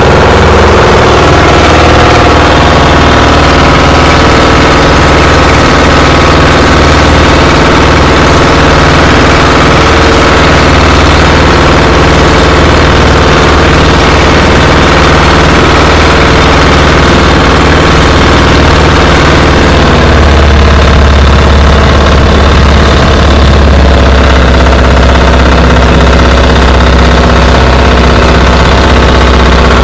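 A motor engine running steadily close by, loud and even. Its note changes about two-thirds of the way through, dropping lower with a heavier low hum.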